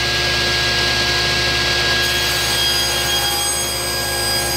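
Table saw with a ripping blade running steadily as it rips a strip off a 3/4-inch pine board fed along the fence; a few higher tones join about two seconds in.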